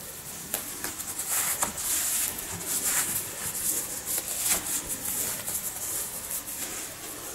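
Fabric rustling and scratching as hands pull a black sock onto a foot and smooth it down, in a steady run of small scrapes.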